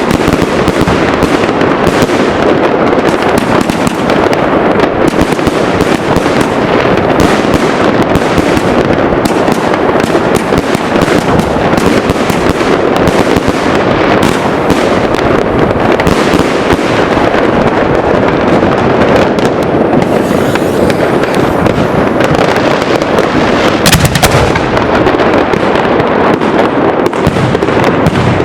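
Fireworks going off in a dense, continuous barrage: many bangs and crackles running together without a break, with one especially sharp crack a little before the end.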